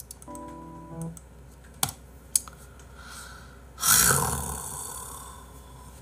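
A soft background music chord for the first second, two light clicks, then about four seconds in a loud breathy exhale into the microphone that fades out over about a second and a half.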